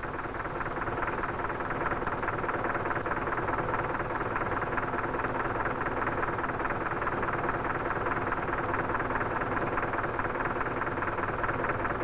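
JCB 3 backhoe loader's engine running steadily at a constant speed, with a fast, even chatter.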